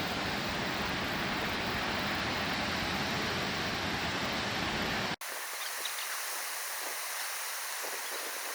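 Steady rushing noise of a distant waterfall with a heavy low rumble. About five seconds in it cuts off abruptly and gives way to a thinner, hissing rush of water with a few faint high chirps.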